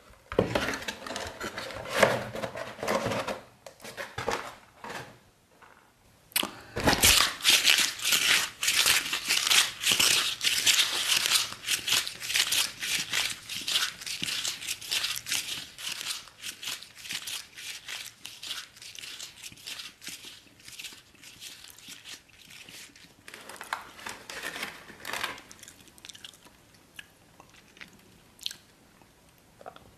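Cardboard pizza box and raw noodles crunching and tearing as they are bitten and chewed, in dense crackling. There are a few short bursts at first, then a long, thick stretch of crunching that thins out and comes back in a few bursts near the end.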